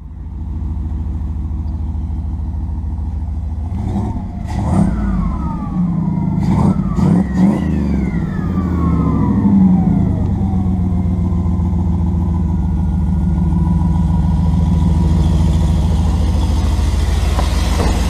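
Turbocharged 5.2L Magnum V8 of a Dodge Ram pickup running through its newly built turbo exhaust. It idles, is blipped several times between about four and eight seconds in with the pitch rising and falling back each time, then settles to a steady idle.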